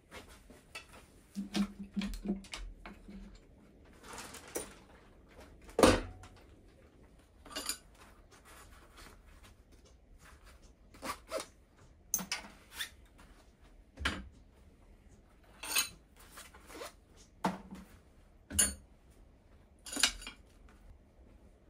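Irregular metallic clinks and knocks of hand tools and loose parts being handled on a stripped-down Mazda 13B rotary engine. About a dozen sharp strikes are spread out at uneven gaps, the loudest about six seconds in.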